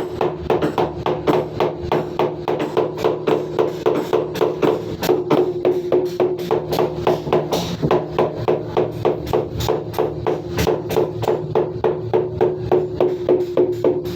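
Background music with a quick, even percussive beat of about four taps a second over a steady held tone.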